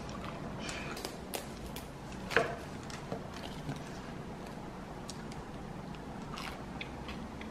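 Crisp, flaky croissant-style pastry crackling as it is torn apart by hand, in scattered small crackles with one sharper crunch about two and a half seconds in.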